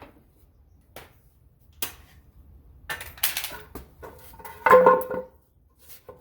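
Wood pieces and tools being handled on a workbench: a few separate knocks, a short scraping stretch about three seconds in, then a louder clank with a brief metallic ring near five seconds.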